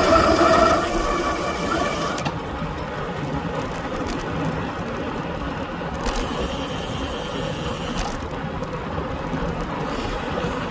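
Road-bike disc brakes squealing with a steady high whine for about the first two seconds, then stopping, leaving steady wind rush and tyre noise on the descent.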